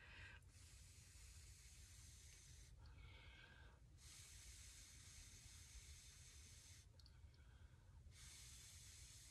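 Faint breathing of a person, three long hissy breaths with quiet gaps between, over near silence.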